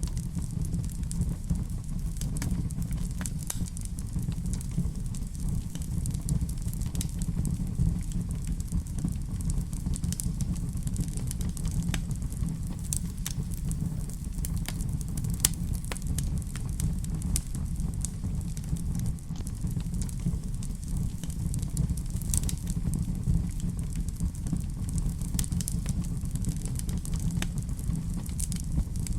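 Wood fire burning in a fireplace: a steady low rumble with irregular crackles and small pops scattered throughout.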